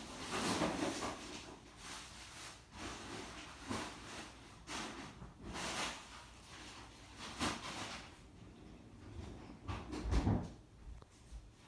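Kitchen clatter: a string of separate knocks and bangs from dishes, utensils and cupboard doors being handled, about eight in all. The heaviest is a deep thump about ten seconds in.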